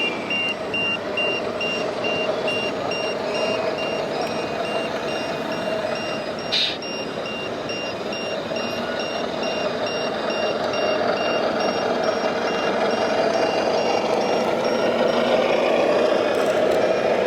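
Reversing beeper of a radio-controlled model truck's sound module: a steady series of high electronic beeps that stops near the end, over a continuous background hum.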